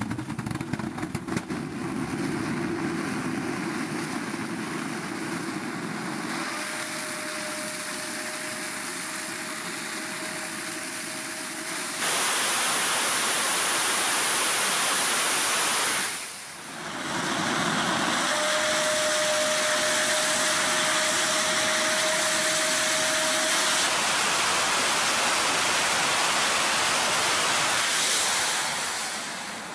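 G-70 hybrid rocket engine firing on a horizontal test stand: a continuous rushing exhaust noise that steps up sharply in level about twelve seconds in as the engine goes from preheat to full thrust, with a brief dip a few seconds later. A thin steady whistle rides over the noise for two stretches of several seconds.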